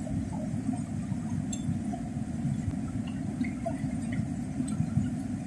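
Fast, swollen river rushing past the bank, heard as a steady low noise.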